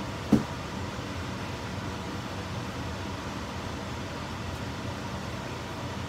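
Electric fan running with a steady whooshing hum. About a third of a second in, a single short knock, louder than the fan.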